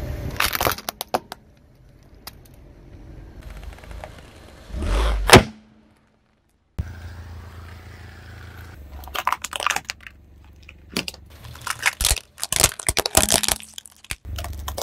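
A car tyre rolling over and crushing brittle objects: a series of sharp cracks, snaps and crunches in clusters, the loudest single crack about five seconds in, over a low steady rumble.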